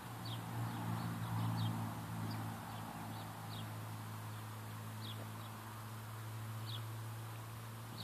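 Outdoor ambience: a steady low hum, loudest in the first two seconds, with short, high chirps of small birds every second or so.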